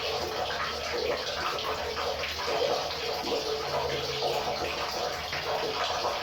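River water running: a steady, even rush with a fine splashing texture and no pauses.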